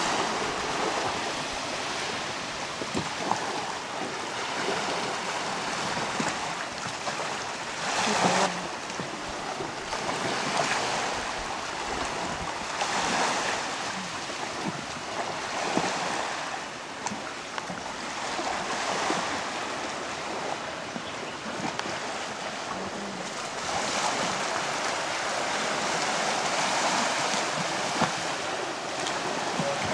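Small sea waves washing onto the shore, the wash swelling and easing every few seconds, with the largest surge about eight seconds in.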